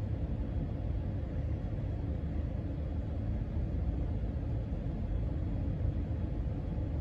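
Casablanca Panama 5 ceiling fan running steadily at a low-to-middle speed: an even, low rumble of its motor and the air stirred by its cane blades.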